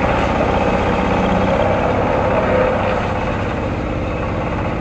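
Single-cylinder diesel engine running steadily, driving a wood hammer mill crusher. It drops a little in loudness about halfway through.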